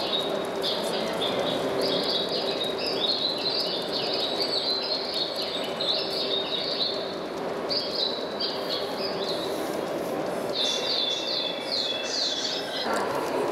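Birds chirping and twittering in quick short phrases, with a run of rapid falling chirps near the end, over the steady rumble and hum of large-scale model trains running on the layout.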